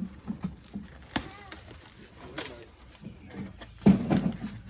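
A cardboard shipping case being handled and opened: scattered knocks, taps and rustles, with a louder thump and shuffle about four seconds in.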